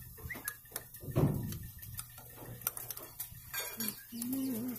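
Steel ring spanner being worked on a nut of an oil expeller's press head: scattered sharp metal clicks and clinks, with a louder knock about a second in.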